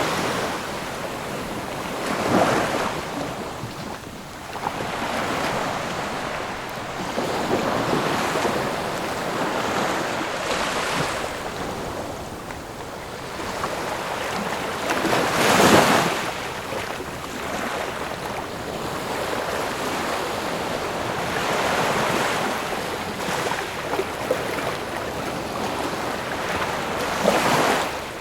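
Ocean waves breaking and washing on the shore, a steady surf hiss with swells every few seconds; the loudest wave crashes about halfway through.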